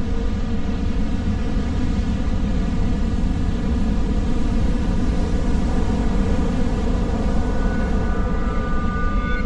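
A steady low rumble under a sustained, many-toned drone: a sound-designed ominous rumble, swelling slightly and then easing.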